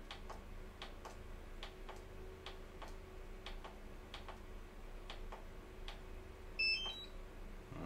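Faint, regular ticking, the clicks coming in pairs about once a second, over a steady low hum. A few short, high electronic beeps sound near the end.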